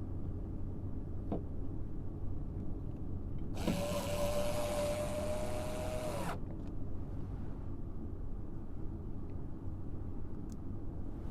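A power drill runs for about three seconds in the middle with a steady whine, over a steady low hum.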